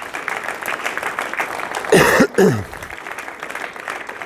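Audience applauding, a dense steady patter of many hands clapping. About halfway through, a brief loud voice sound falling in pitch stands out over the clapping.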